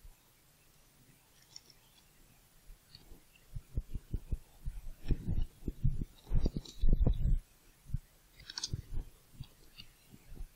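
Typing on a computer keyboard: runs of quick key strikes that begin a few seconds in and grow dense, with a short pause before a last run near the end.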